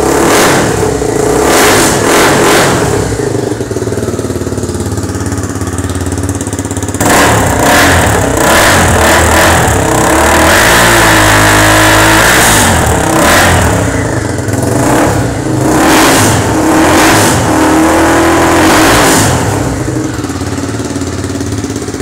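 Honda CB300R single-cylinder engine revving through a cut-down RS5 aftermarket exhaust. It gives a few quick throttle blips, idles briefly, then revs again with one longer held rev around the middle, followed by more blips. It settles back to idle near the end.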